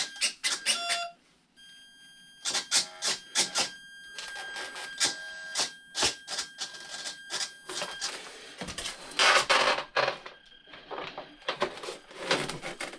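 Small servos in a foam RC warbird buzzing and whirring in short bursts as the control surfaces are moved from the transmitter, with plastic clicks and rattles. A steady high whine runs from about two seconds in to past the middle, and there is rubbing and clicking of foam and plastic near the end as the canopy is pressed on.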